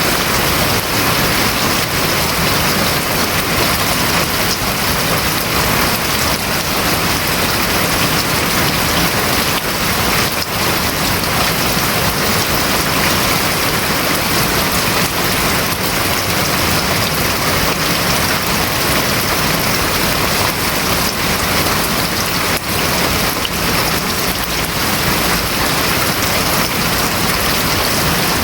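Steady heavy rain drumming on a house roof, a dense even hiss of drops with no breaks.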